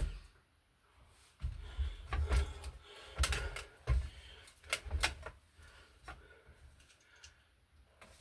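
A sharp click, then a flurry of clicks, knocks and rustling as electrical hardware is handled and fitted on the wall, easing off after about five seconds.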